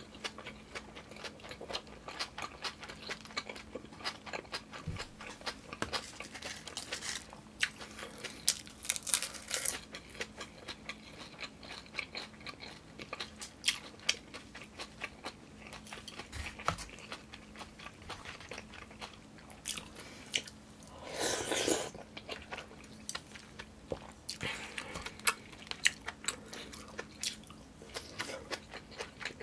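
Close-up mouth sounds of a person chewing food, with many small wet clicks and smacks. About 21 seconds in comes a brief, louder rush of noise, and a faint steady hum runs underneath.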